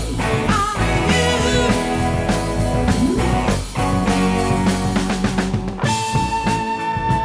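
1970s rock band recording with electric guitar, bass, keyboards and drum kit playing. About six seconds in, the drums and cymbals drop away and a single held note rings on over a sparser backing.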